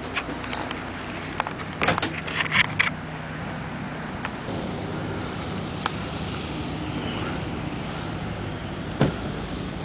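A steady low motor hum, like a vehicle running. A few clicks and rattles come about two seconds in, and a single knock near the end.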